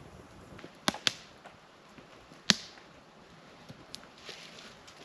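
Small twig campfire crackling, with a few sharp pops, the loudest about two and a half seconds in.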